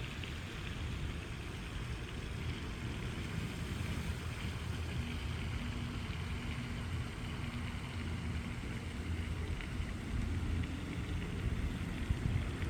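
Steady rushing water noise with a constant low rumble underneath.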